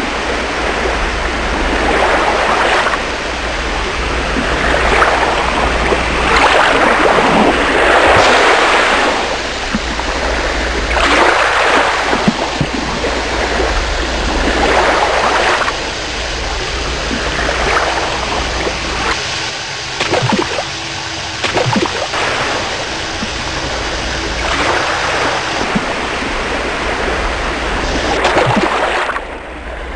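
Rushing, splashing water that surges and falls back every second or two, over a low steady drone.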